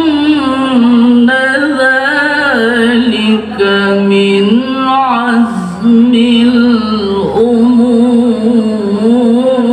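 Male qari chanting the Quran in the melodic tilawah style, a high voice holding long notes with rapid trills and slides between pitches, broken by two brief pauses.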